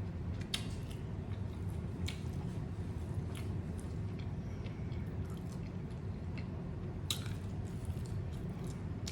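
Close-miked chewing of a taco: wet, squishy mouth sounds with scattered short clicks and smacks, over a steady low hum.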